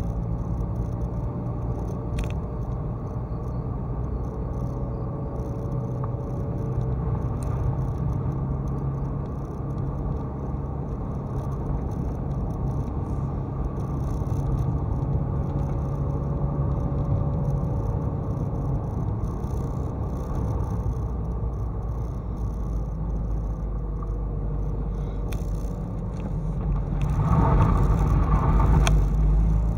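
Mazda MX-5's four-cylinder engine and tyre rumble heard from inside the car while driving along a narrow paved lane: a steady low rumble with a faint wavering whine above it. It grows louder for a couple of seconds near the end.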